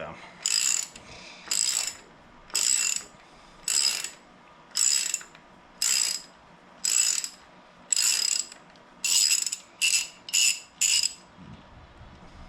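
Hand socket ratchet clicking in short rapid runs, about a dozen strokes roughly one a second, coming quicker just before they stop near the end.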